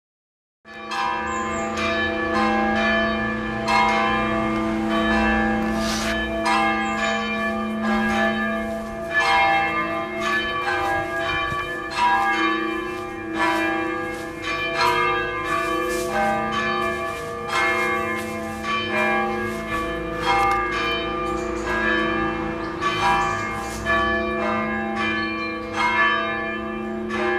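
Church bells pealing: several bells struck over and over in overlapping strokes, their ringing sustained over a steady low hum. The peal starts about a second in.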